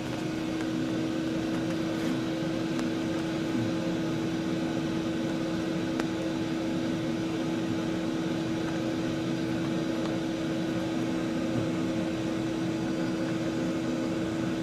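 A steady machine hum with one constant tone that holds unchanged throughout.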